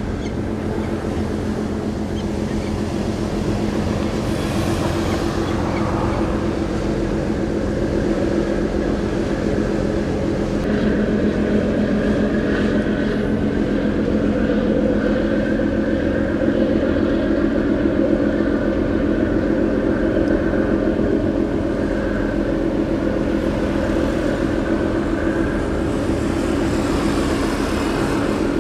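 Engines of the self-propelled crane ship CP-5001 droning steadily as it sails past, a little louder in the middle.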